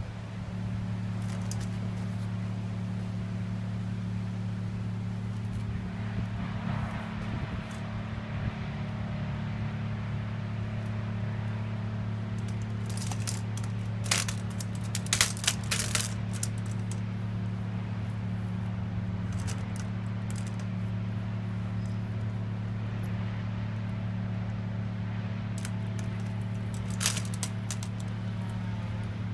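A steady low hum, with a few sharp metallic clicks and rattles from an aluminium walker and a wheelchair being handled as a person sits down, about halfway through, and one more click near the end.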